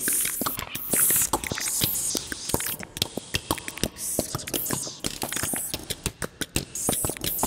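Noise piece for amplified voice and live electronics: dense, irregular mouth clicks and pops, several a second, with bursts of breathy hiss, without words or sung pitch.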